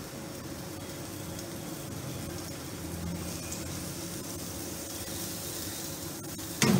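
Pointed gourd (potol) slices frying in shallow oil in a pan, with a steady, soft sizzle.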